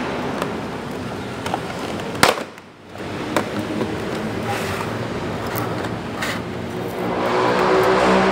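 Clear plastic blister tray crackling and clicking as it is handled and lifted from its box, with one sharp snap about two seconds in. Near the end a louder, low pitched drone rises over it.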